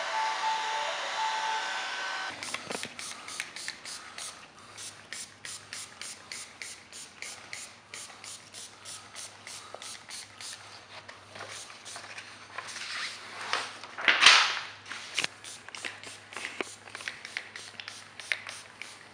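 Electric heat gun running with a steady whine, switched off about two seconds in. Then a felt-edged squeegee is rubbed over the wet vinyl wrap in quick, even strokes, about three a second, with one loud hiss of sprayed application fluid about two-thirds of the way through.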